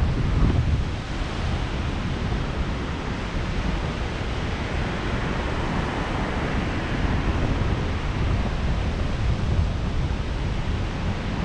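Steady rushing wind buffeting the microphone, heaviest in the low rumble, with no let-up.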